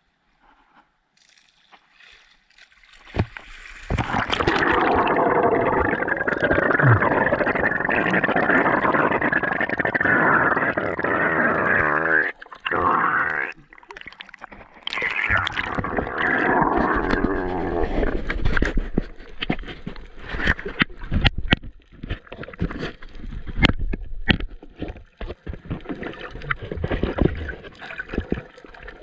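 Water splashing and gurgling around an action camera at the sea surface as a spearfisher gets into the water, loud from about four seconds in with a short break near the middle. It then turns to quieter underwater sound with many scattered sharp clicks.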